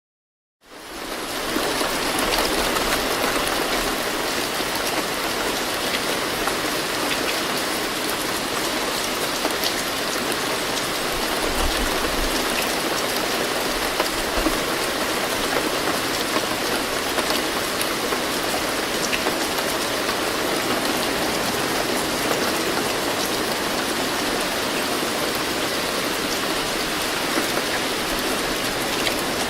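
Moderate rainfall: a steady, dense hiss of raindrops with scattered individual drop ticks, fading in at the start.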